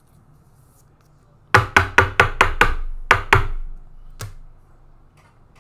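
Nine sharp knocks, like hard raps on a wooden surface: six in quick succession at about five a second, then two more after a short pause, and a last single knock about a second later.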